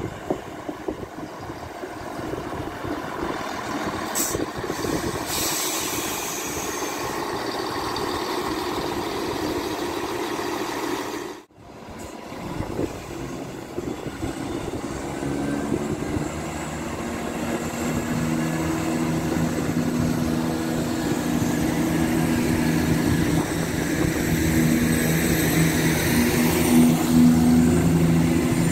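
Class 170 Turbostar diesel multiple unit coming into the station: a rumble of wheels on rail and underfloor engines, with a brief high squeal about four seconds in. After a sudden dropout near the middle, the engines' steady hum grows louder as the unit draws alongside.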